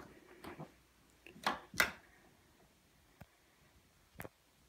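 A few separate short knocks and clicks in a quiet room, the loudest two close together between one and a half and two seconds in, with weaker ones a little after three seconds and just after four.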